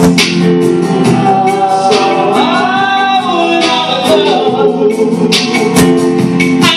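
Live gospel song: a man and women singing together over electronic keyboard.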